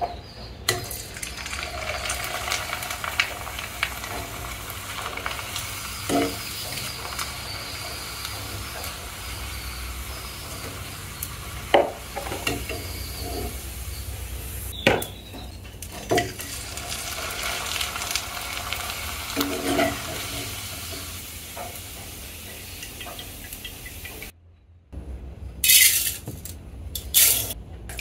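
String hoppers deep-frying in hot oil in a small iron wok, a steady sizzle, with a few sharp clinks of a metal strainer ladle against the pan.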